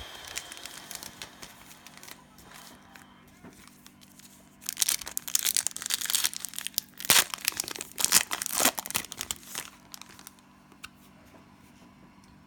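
Cellophane wrapper of a trading-card cello pack being torn open and crumpled: light crinkling at first, then a run of loud crackling from about five to ten seconds in.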